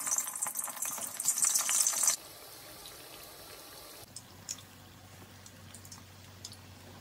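Wrapped rolls deep-frying in hot oil in a wok: loud, dense sizzling and crackling for about two seconds, then a softer steady sizzle with occasional pops.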